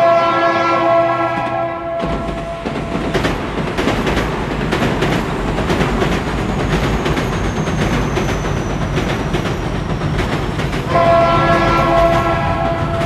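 A train horn sounds a steady chord for about two seconds. Then the train runs with a rumble and rapid clicking of wheels on rails, and the horn sounds again about eleven seconds in.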